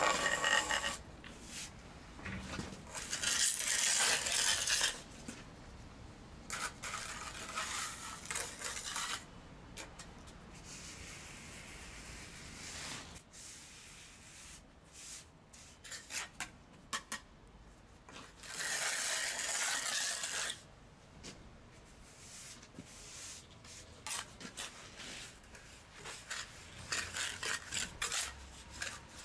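A mason's trowel scraping and spreading mortar in a joint against granite stone, in several strokes of a second or two each, with short taps and clicks between them.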